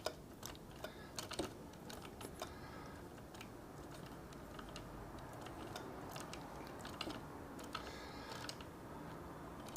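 Light, irregular clicks and taps of a small hand tool and plastic kit parts while a screw is being fastened on a model car's shock mount.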